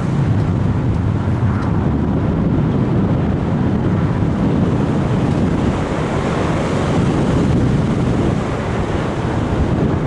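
Wind rushing over the microphone of a Sony HDR-AS15 action cam riding on a Bird of Time RC sailplane in flight: a steady, deep rush of air with no motor heard.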